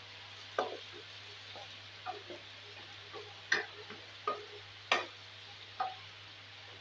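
Wooden spatula stirring diced potatoes and tomatoes in a stone-coated nonstick wok. It gives about seven irregular knocks and scrapes against the pan, the loudest around the middle, over a steady low hiss and hum.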